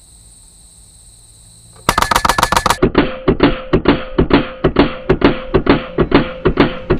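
LCS SK-19 PCP air rifle firing a rapid full-auto burst of pellets, a quick string of sharp cracks lasting under a second, about two seconds in. Background music with a steady beat follows it.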